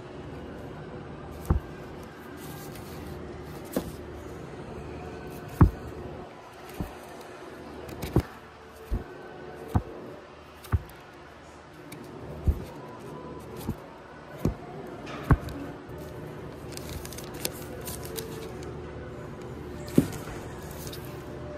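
Vinyl LP record jackets flipped forward by hand in a crate, each cardboard sleeve slapping against the next with a sharp knock at uneven intervals of about a second.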